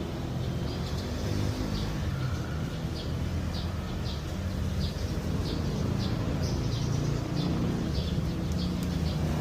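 A small bird chirping over and over, short high chirps about two a second, over a steady low rumble.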